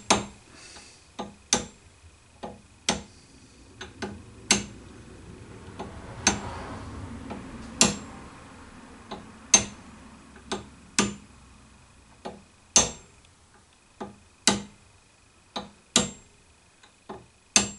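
A hammer gently tapping a brass drift to drive a spindle bearing's outer race into a milling machine quill. The strikes are light, sharp metallic taps, irregular and roughly one a second. The race is going in fairly well.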